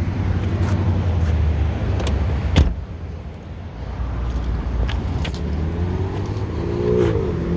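Steady low vehicle rumble, with a single sharp latch-like click about two and a half seconds in as the Mercedes SLK230's hood is popped open.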